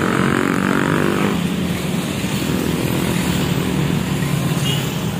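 Coach bus engine idling steadily, with traffic and a motorbike passing on the road beside it.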